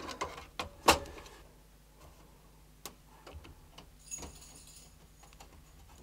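A case fan being handled and pressed into place against the metal PC chassis with push clips: one sharp click a little under a second in, then a few faint clicks and taps.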